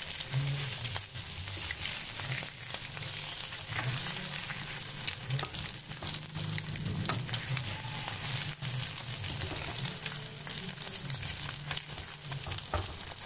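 Eggs sizzling in hot oil in a frying pan while a spatula chops and scrapes through them, making frequent short clicks and scrapes against the pan.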